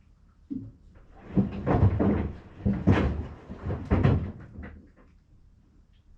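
Sandals tumbling in a Maytag washing machine, knocking and thudding against the sides of the washer. A run of several heavy knocks starts about half a second in, is loudest in the middle, and dies away about a second before the end.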